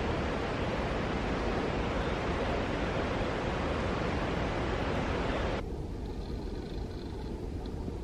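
Steady, even rushing outdoor noise that cuts down abruptly about five and a half seconds in, leaving a quieter background with a few faint high ticks.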